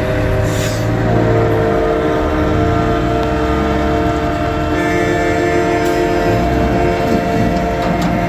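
A truck's train-style air horn held in one long chord of several notes, with higher notes joining about five seconds in, over the low rumble of diesel truck engines.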